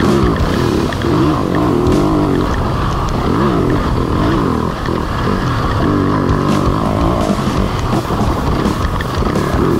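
Yamaha dirt bike engine revving up and down in quick repeated swells as the throttle is worked on and off over a rough dirt trail.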